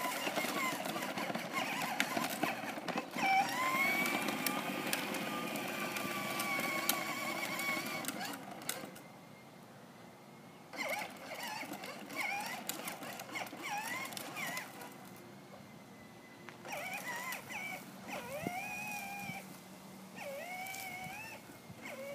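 Battery-powered Buzz Lightyear ride-on toy quad running on concrete: a steady whine from its electric motor over the rolling of its plastic wheels, which stops about eight seconds in. Later come short, rising and falling high calls, several times.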